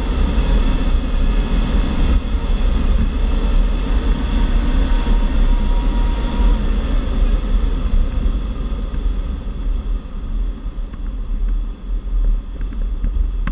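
Airflow rushing over the canopy of a Grob G103 Twin Astir glider in flight: a loud, steady, deep rumble of wind noise in the cockpit, with faint steady high tones above it.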